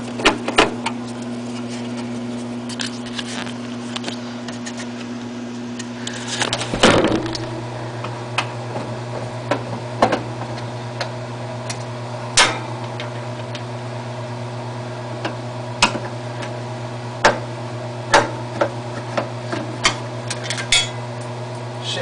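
Steady low hum, with scattered sharp clicks and metallic clinks of a screwdriver and loose screws being worked on a window air conditioner's control panel. There is a louder clatter about seven seconds in.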